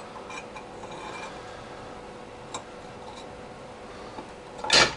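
Light metallic clicks and scrapes as a steel pinion shaft is slid by hand into the bore of an engraving machine's cast arm, with one louder, sharp knock near the end.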